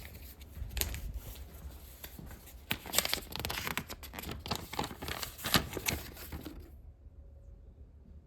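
Close-up handling noise: rustling and scraping with many sharp clicks and knocks, which stops abruptly about seven seconds in. A low steady hum runs underneath.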